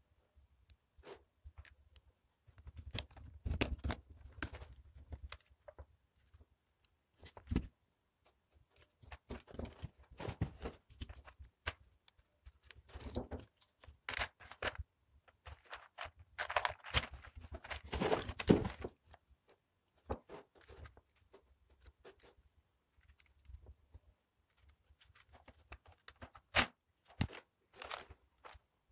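Plastic LEGO Technic parts clicking, rattling and scraping as they are rummaged through in plastic sorting trays and handled, in irregular bursts with sharp clicks between.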